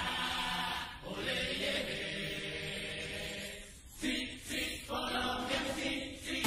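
Music with chanted, choir-like voices, in phrases broken by short dips about a second and about four seconds in.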